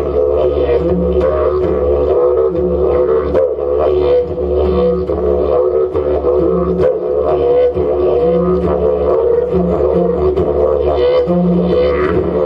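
Two didgeridoos played together in a duet: a continuous low drone with shifting, mouth-shaped overtones, and a higher note from the second instrument coming in and out in short stretches.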